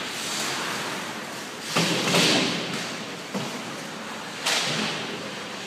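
Ice hockey play in a rink: sharp thuds and knocks echoing around the arena, the loudest about two seconds in and trailing off over about half a second, then two lighter knocks.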